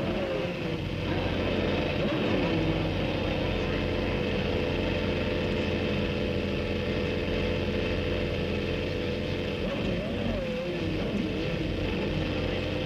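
A Formula One car engine running at steady, constant revs, with a steady low hum beneath it. The pitch glides briefly near the start and again about ten seconds in.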